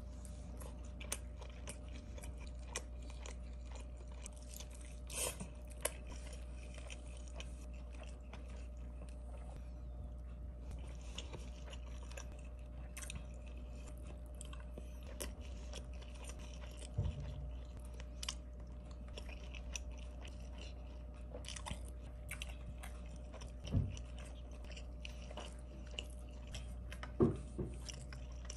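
Close-up chewing and biting into honey garlic chicken and rice, with many small crisp clicks and a few louder soft thumps. A steady low hum lies underneath.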